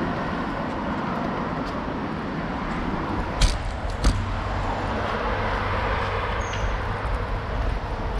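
Steady street and traffic noise, with two sharp knocks about three and a half and four seconds in, followed by a low rumble.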